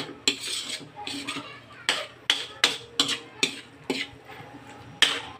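Metal spatula scraping and clanking against a steel wok while stir-frying tofu and pork, in irregular strokes a few times a second, with a short pause about four seconds in.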